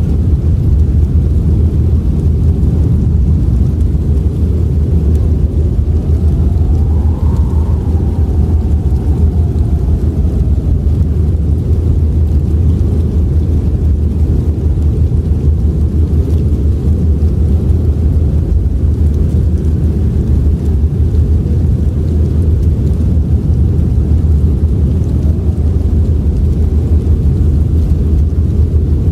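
Strong howling wind of a blizzard: a deep, steady rumbling roar. A thin whistling gust rises and falls about six to eleven seconds in.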